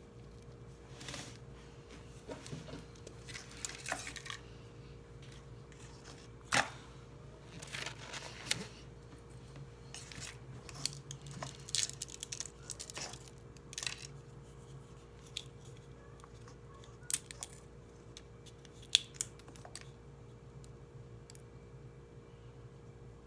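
Paper rustling at a desk, with scattered single sharp taps and clicks, over a steady low hum.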